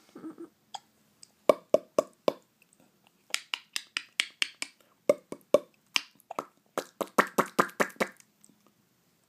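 A series of sharp taps or clicks: a few single ones, then two quick runs of about six a second.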